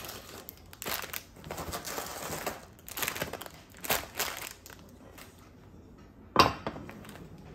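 Foil-wrapped cookie packets crinkling and rustling in several bursts as they are spilled and spread out on a counter. Then comes a single sharp knock about six seconds in, as a ceramic baking dish is set down on the stone countertop.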